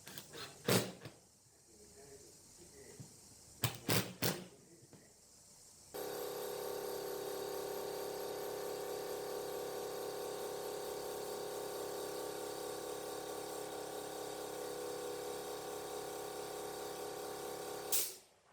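A few sharp knocks, then an electric power tool starts abruptly and runs at a steady speed for about twelve seconds before stopping.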